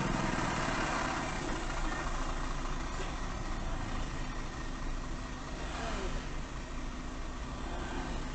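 A car engine idling steadily in slow traffic, with other vehicles passing close alongside.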